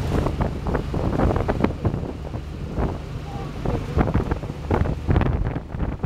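Wind buffeting the microphone inside a moving open-sided tuk-tuk, over the steady low drone of its small engine, with many short knocks and rattles throughout.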